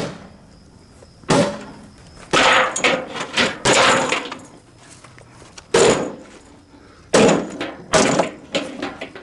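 A lawnmower being smashed: a series of heavy crashing blows at uneven intervals, about eight of them, with metal and plastic parts clattering and breaking.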